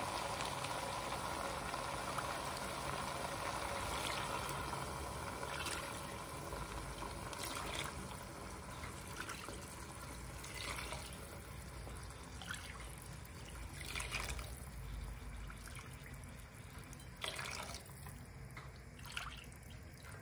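Chicken stock poured from a saucepan into a small cup measure and tipped into a pan of lentils and tomato, trickling and splashing. The pouring is steadiest and loudest in the first few seconds, with several short, sharper splashes later as cupfuls go in.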